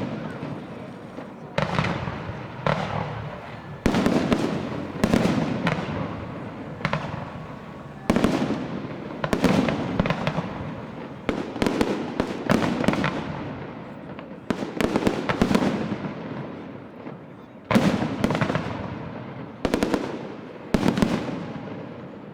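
Aerial fireworks shells bursting one after another, about one bang a second. Each bang trails off in a fading rumble and crackle.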